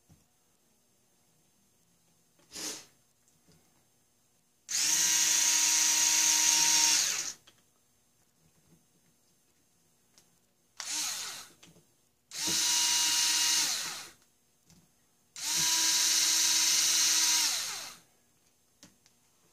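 Small cordless electric screwdriver running in three spells of about two and a half seconds each, with a shorter burst between the first and second. Its motor pitch drops as each spell stops. It is driving the stainless 6-32 machine screws that hold down a model steam engine's cylinder head.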